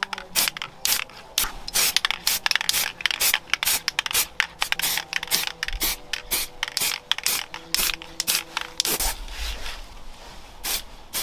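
Aerosol can of plastic primer sprayed onto a plastic car diffuser in quick, short bursts, several a second, with a softer spray hiss near the end.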